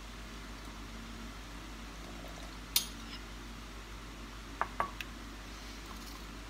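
Kitchen bowls clinking as they are handled and set down on a stone counter: one sharp clink about three seconds in and two softer ones near the end, over a steady low hum.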